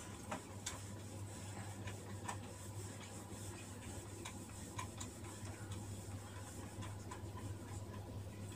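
Cloth duster wiping a whiteboard clean: a faint rubbing with scattered light clicks, over a steady low hum.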